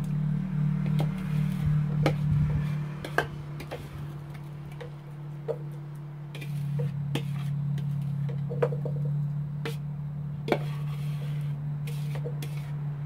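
A utensil scraping and knocking against a mixing bowl as thick blueberry batter is scooped out into a pie plate: irregular clicks and short scrapes over a steady low hum.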